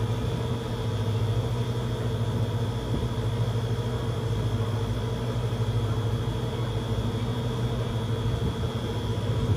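A steady low machine hum, like an engine idling, running unchanged throughout.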